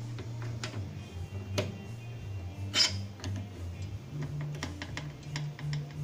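Metal screwdriver tip clicking and scraping against a microwave oven's high-voltage capacitor terminals and chassis as the capacitor is shorted to discharge it: a string of sharp clicks, the loudest about three seconds in. Low sustained background music plays underneath.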